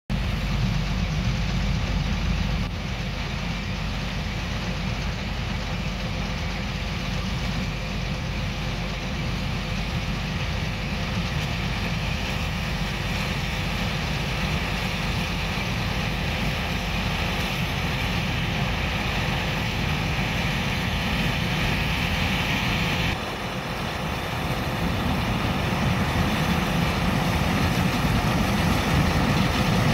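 Heavy diesel farm machinery running with a steady drone. It dips briefly about three-quarters of the way through, then grows louder toward the end.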